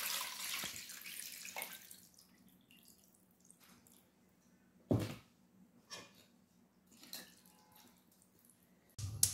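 Water poured into a pot of raw chicken pieces, onion and tomato, a hissing splash that fades out over the first two seconds. Then a few short light knocks, the loudest about five seconds in, as a wooden spoon works in the pot.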